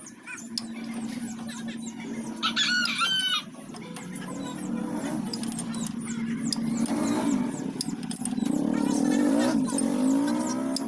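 A rooster crowing, over background music.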